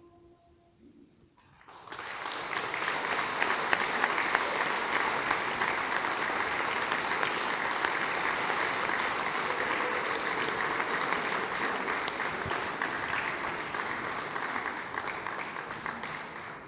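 The last held note of the choir dies away, and about two seconds in the audience breaks into sustained applause, which fades out near the end.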